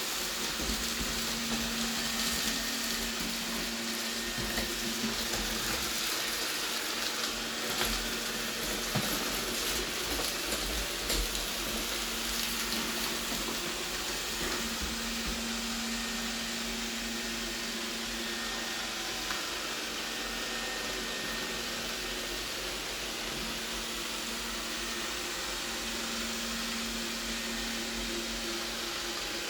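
Robot vacuum cleaner running in spot-cleaning mode: a steady motor whir and hum, with scattered sharp ticks and rattles in roughly the first ten seconds.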